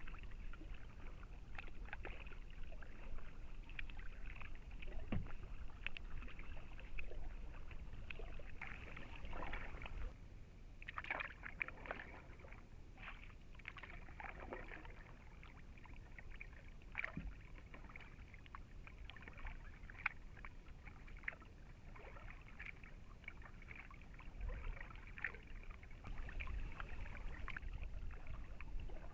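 Double-bladed kayak paddle dipping into calm water, with irregular splashes and drips as the blades enter and leave the water.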